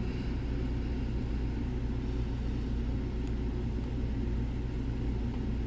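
A steady low mechanical hum, with a few faint light ticks.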